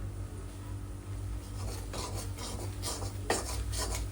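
A ladle scraping and stirring gram flour in ghee in a kadhai, a few rasping strokes against the pan, as the besan begins to roast; a steady low hum runs underneath.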